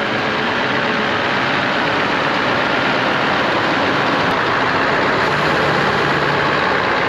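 Lorry diesel engine running steadily.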